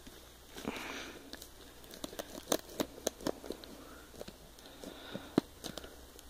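Clear plastic shrink wrap on a DVD box set crinkling and crackling as fingers pick at it and tear it open: irregular sharp crackles, with a short rustle about a second in.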